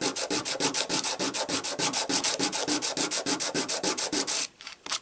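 A coin rubbed back and forth by hand on sandpaper in rapid, even strokes, levelling its ground-down face. The strokes stop about four and a half seconds in.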